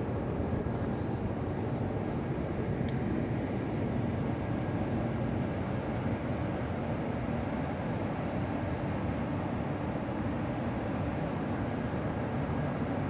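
Steady running noise of an E5 series Shinkansen train at the platform, with a thin high tone held throughout.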